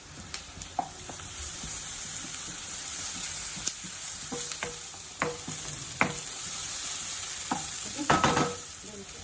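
Onions and ginger garlic paste sizzling in hot oil in a pan while being stirred, the spatula knocking and scraping against the pan several times, most busily near the end.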